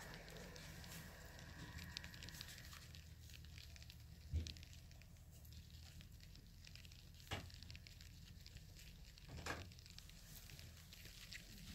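Quiet room tone with a low hum, broken by three soft knocks a few seconds apart, the first the loudest.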